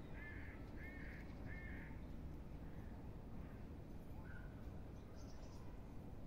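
A bird calling three times in quick succession, short calls about two-thirds of a second apart, with a fainter call a little later, over a steady low outdoor rumble.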